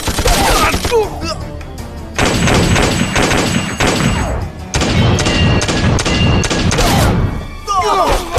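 Film battle soundtrack: dramatic music under bursts of gunfire and heavy thuds, with brief shouts near the start and the end. The loud gunfire stretches start abruptly about two seconds in and again around five seconds in.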